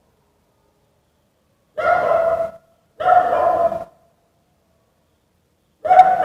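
A dog barking angrily: three drawn-out barks, the first about two seconds in and the last near the end.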